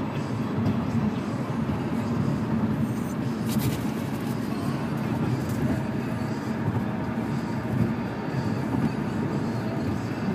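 Steady rumble of road and engine noise inside a moving car's cabin, with a brief click about three and a half seconds in.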